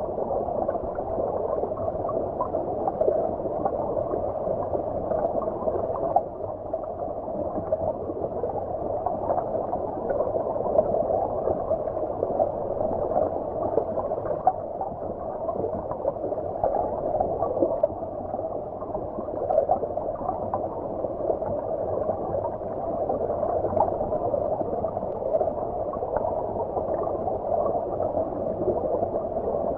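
Stream water flowing, heard from beneath the surface: a steady, muffled wash with no high end, dotted with small scattered pops.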